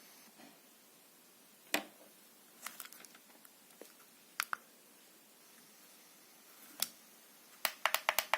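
Sharp, isolated clicks and taps over a faint steady hiss, ending in a quick run of clicks about five a second.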